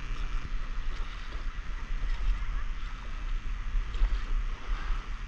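Water swishing and lapping around a stand-up paddleboard as it is paddled, with wind rumbling on the microphone.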